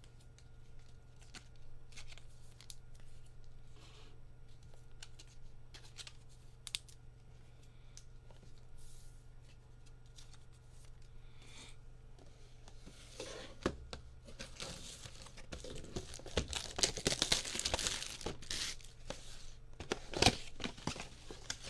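A trading card box and its foil card pack wrappers being handled and torn open: light scattered clicks and rustles at first, then dense, loud crinkling and tearing over the second half.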